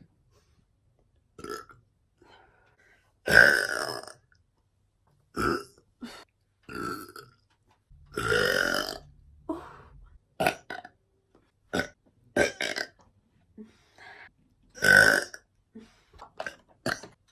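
Young women burping in a run of separate belches, one after another. Some are short and some are drawn out for about a second. The loudest comes about three seconds in, and another loud one comes near fifteen seconds.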